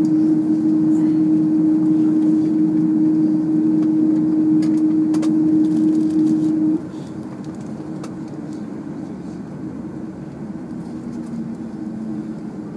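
Steady Airbus A330-200 cabin drone with a strong steady hum while the aircraft taxis. About seven seconds in the hum and overall noise drop suddenly, leaving a quieter, steady drone.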